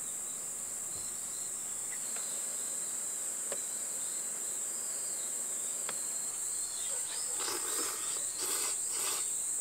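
A steady, high-pitched chorus of insects chirring. A couple of light clicks of a fork on an aluminium mess tin come before several louder slurping, chewing noises of pasta being eaten, from about seven seconds in.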